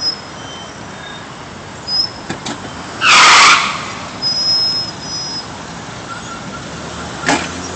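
Cars and taxis passing close at low speed, a steady traffic rumble. About three seconds in comes a loud hiss lasting just over half a second, followed by faint high-pitched squeals and a short click near the end.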